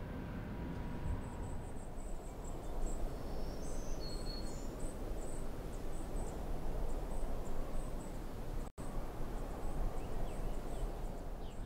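Outdoor ambience: a steady low rushing noise with scattered high, thin chirps that come irregularly. The sound cuts out for a moment about nine seconds in.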